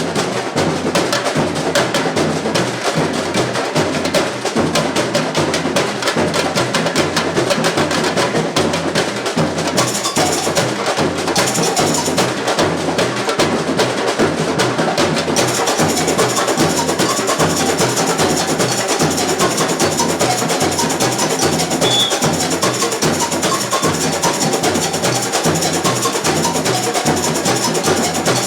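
A samba bateria drum ensemble plays a steady, driving samba groove. Deep bass-drum beats sit under dense snare and small-drum strokes. The upper range grows brighter and fuller partway through.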